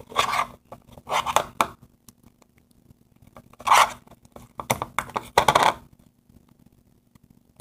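A plastic spoon stirring and scraping sticky homemade slime in a bowl, in five or so short noisy bursts.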